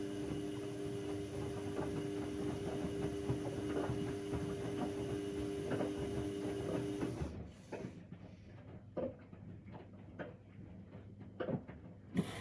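Bauknecht WA aquaton 1400 washing machine running mid-cycle with a steady hum. The hum stops about seven seconds in, leaving scattered splashes and knocks of water and laundry in the drum, and starts again right at the end.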